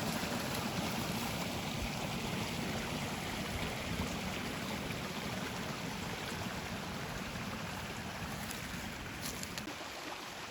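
A stream flowing steadily, a constant rush of water that grows slightly fainter toward the end.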